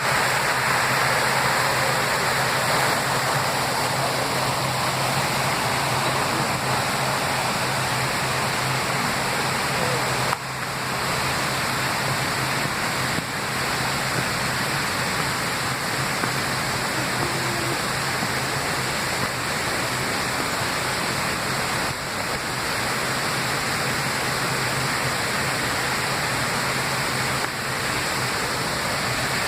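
A waterfall rushing steadily, a continuous, even wash of falling water.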